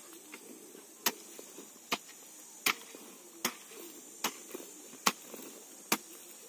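Hand hoe blade chopping into dry earth, with a steady rhythm of sharp strikes about one every 0.8 seconds, seven in all, as planting holes are dug.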